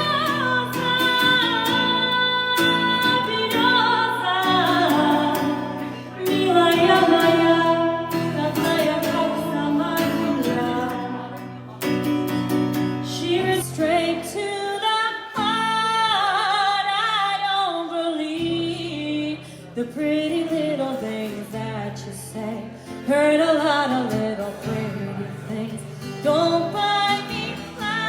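A woman singing a melody over guitar accompaniment.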